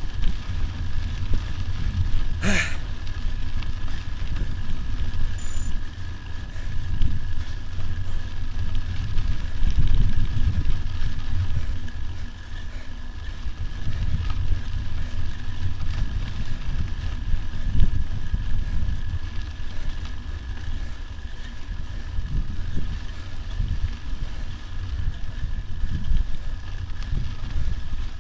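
Wind buffeting an action camera's microphone as a mountain bike rolls along a dirt track, a steady low rumble. There is a single sharp knock about two and a half seconds in.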